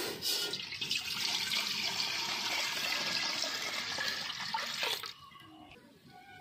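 Water poured in a steady stream from a plastic jug into a large aluminium pot, splashing on the pot's bottom; the pouring stops abruptly about five seconds in.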